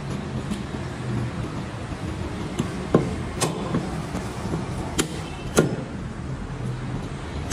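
Butcher's cleaver chopping goat meat on a wooden chopping block: four sharp chops in two pairs, the first pair about three seconds in, over a steady low background rumble.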